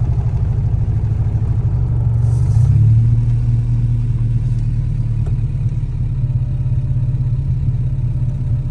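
Honda B18C1 1.8-litre four-cylinder engine of an Integra GSR running with a steady low drone, swelling briefly louder about two and a half seconds in, as the car is tried out on a freshly installed clutch and lightweight flywheel.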